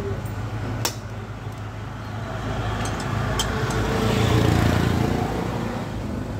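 A motor vehicle engine running steadily in the background, getting louder about three to five seconds in. Two sharp metallic clicks come from a motorcycle drive chain being worked back onto its rear sprocket by hand.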